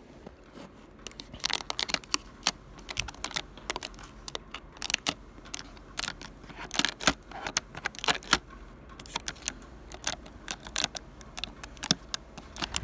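Irregular small clicks, taps and crinkles of hands working at a dryer vent hood with foil duct tape, with no steady rhythm.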